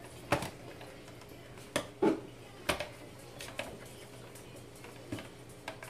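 Small hot sauce bottles being prised out of their gift-box packaging: about half a dozen sharp clicks and knocks, with a short clink about two seconds in.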